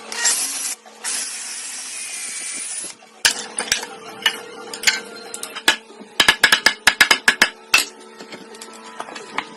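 Workshop sounds: two bursts of hissing, the second about two seconds long, then a string of sharp taps or knocks, coming quickly for a second or so in the middle.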